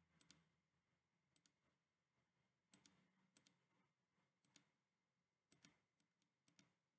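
Very faint computer mouse clicks, about one a second, many heard as a quick pair, over near silence.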